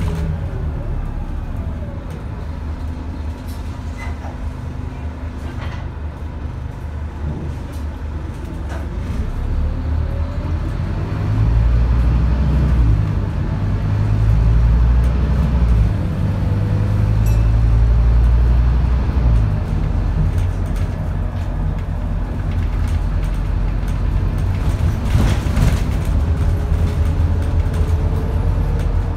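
Scania DC9 diesel engine of a Scania N230UD double-decker bus running as the bus drives, heard from inside on the upper deck, with a low drone that grows louder for several seconds in the middle as the engine pulls harder. A fainter whine rises and falls in pitch over it.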